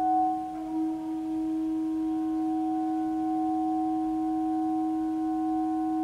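Saxophone and live electronics holding one long, steady, pure-sounding note, with a brief waver about a second in.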